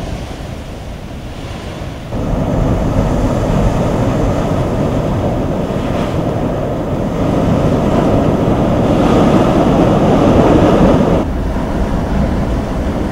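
Rough sea with heavy waves breaking and surging against a seawall and rocks: a dense, steady roar of surf. It grows louder about two seconds in, swells further, then drops back near the end.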